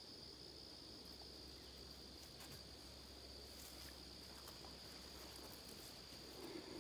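Faint, steady high-pitched chirring of crickets, with little else above near silence.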